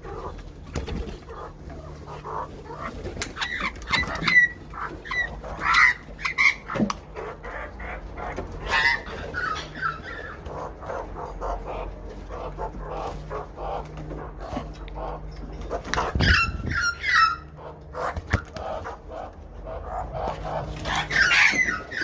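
Australian magpies calling and warbling in short, gliding phrases, with scattered clicks and a louder thump about sixteen seconds in.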